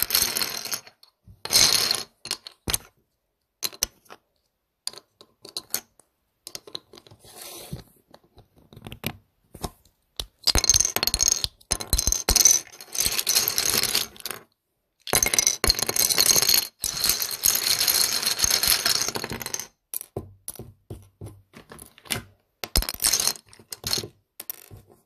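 Loose plastic LEGO bricks clattering and clicking against each other: scattered single clicks, then two long stretches of dense clatter from about ten to twenty seconds in, then scattered clicks again.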